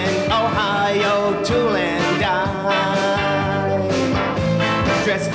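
Live country-rock band playing an instrumental passage between sung lines: a lead instrument with bending, sliding notes over guitar, bass and a steady beat.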